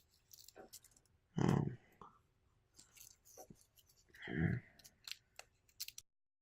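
Light clicks and scrapes of small parts being handled, with two short murmured vocal sounds. The sound cuts off to dead silence near the end.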